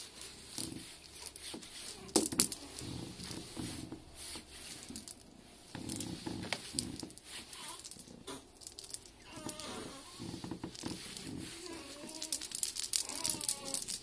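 Crinkling and rustling of a feather-and-ball wand toy as a cat bats and grabs at it on carpeted stairs, with soft knocks and clicks, the sharpest about two seconds in and again about six seconds in. A few short wavering vocal sounds come about ten seconds in and again near the end.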